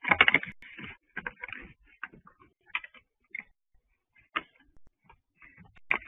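Two sparring deer bucks making irregular sharp clicks and clacks: a dense flurry in the first second, then scattered single clicks.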